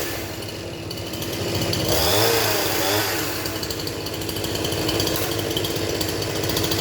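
Husqvarna 353 two-stroke chainsaw engine running warm, its pitch rising and falling briefly about two seconds in.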